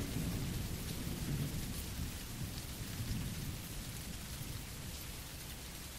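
Rain and thunder ambience: a steady patter of rain over a low, rolling rumble of thunder, slowly fading.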